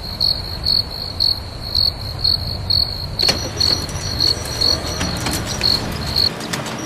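Crickets chirping, about two chirps a second, over a steady low rumble. About halfway in, a fainter, higher chirping and scattered clicks join. The sounds stop shortly before the end.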